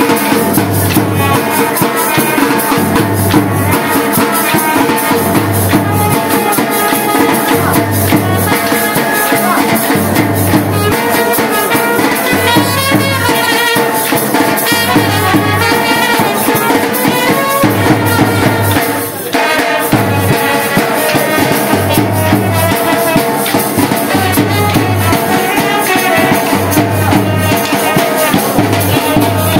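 Folk music accompanying a Gopa Nritya ribbon-and-stick dance: a low drum beat about once a second under a dense layer of rattling, jingling percussion.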